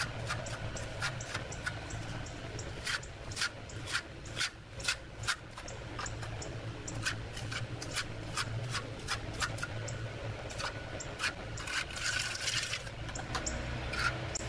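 A hand trowel rubbing and scraping across wet concrete as the patch beside a channel drain is smoothed, with many short, irregular clicks and taps.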